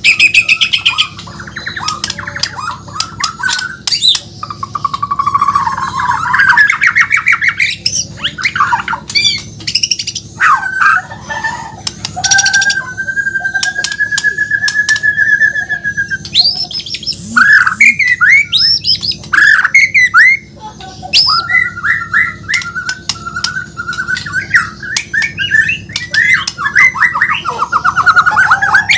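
White-rumped shama (murai batu, Borneo form) singing loudly and without pause, a varied run of whistled slurs, rapid trills and sharp clicks, with one long buzzy note held for a few seconds near the middle.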